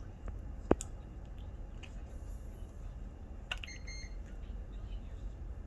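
Baby hiccuping: two short, sharp hiccups about three seconds apart, the first the louder, the second followed by a brief high tone.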